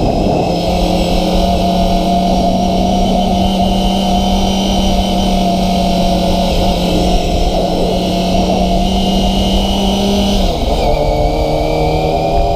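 Kawasaki ZX-25RR's 250 cc inline-four engine running at steady revs under way, with wind rushing past. About ten and a half seconds in, the engine note drops a little and then holds again.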